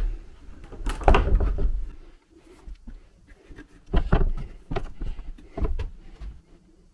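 Irregular wooden knocks and clatter: a dense cluster about a second in, then several separate knocks from about four seconds on.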